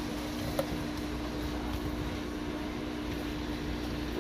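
Steady mechanical hum holding several even tones, over a light sizzle from seasoned shrimp going into melted margarine in a nonstick skillet. One light tap about half a second in.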